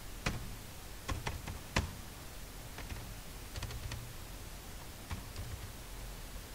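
Computer keyboard being typed on: scattered, irregular keystrokes, a few single clicks and short runs of them, over a low steady hum.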